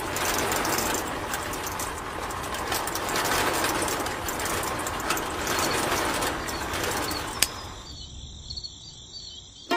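A miniature model sand-making machine runs, its small electric motor driving a bucket elevator and a shaking sieve, with a dense rattling of sand and grit. About seven and a half seconds in a sharp click sounds as its switch is pressed, and the running sound dies away.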